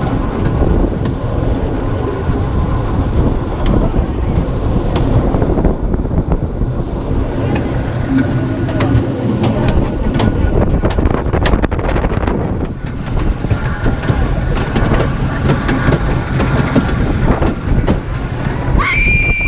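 Rocky Mountain Construction hybrid wooden coaster train running along its Topper Track, heard from the back row: a loud, uneven rumble of wheels on track mixed with rushing wind, with scattered sharp clacks. A high squeal rises and then holds near the end.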